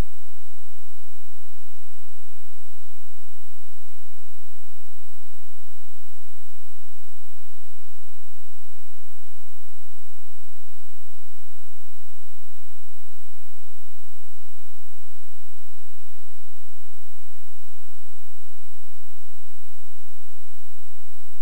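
Steady electrical hum: a set of fixed whining tones over a faint hiss, unchanging throughout, with no speech.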